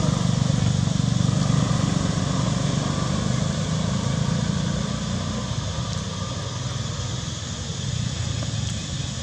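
An engine running steadily, growing fainter about halfway through.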